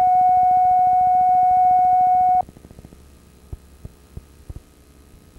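Steady line-up test tone of a television tape, played over colour bars, cutting off abruptly about two and a half seconds in. After it comes low tape hum and hiss with a few faint ticks.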